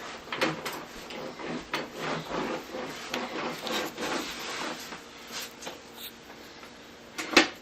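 Plastic toy train pieces being handled on a table: irregular rubbing and scraping with many small clicks, and a sharper knock near the end.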